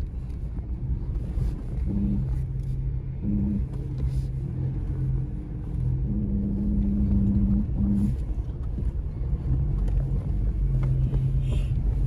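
A 4WD crawling down a steep track: a constant low rumble of the vehicle, with a low hum from the brakes that comes and goes several times. The driver takes the noise as a good sign that the brakes are working.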